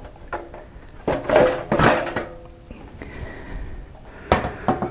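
Sheet-metal cover of a laser marking unit being lifted off its chassis: metal scraping and clanking, with a loud rattling scrape about a second in and two sharp knocks near the end.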